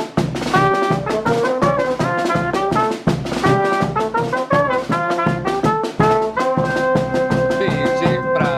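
Brass band with trumpets and trombones playing a fast, lively tune over a quick drum beat. Near the end it settles into a long held chord.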